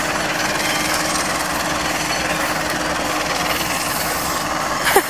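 Diesel locomotive running steadily as a train rolls into the station, with a brief louder gliding sound near the end.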